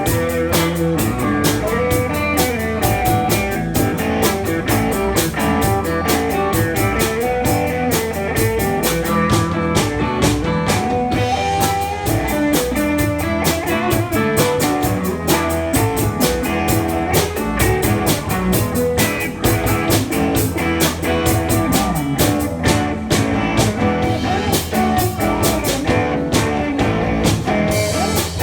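Live band playing rock music with guitar and a drum kit, keeping a steady beat.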